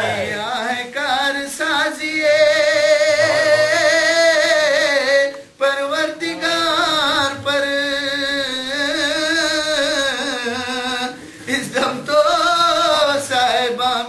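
A man's unaccompanied voice chanting a Shia mourning elegy (marsiya) for Husayn, with long held notes and wavering ornaments, breaking off briefly about halfway and again near the end.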